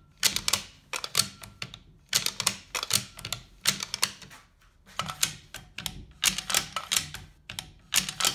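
Bolts of Accuracy International AT and AXMC bolt-action rifles being cycled by hand, opened and closed over and over: repeated runs of sharp metallic clacks, about six in all.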